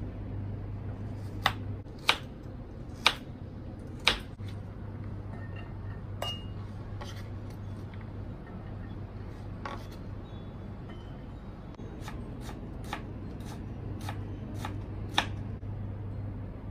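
Kitchen knife cutting carrot on a wooden chopping board: single sharp knocks of the blade on the board, four loud ones in the first few seconds and a looser, fainter run later. A steady low hum runs underneath.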